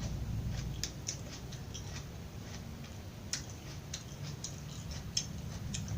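Close-miked chewing of raw vegetables: scattered crisp crunches and clicks, a few at a time, over a steady low hum.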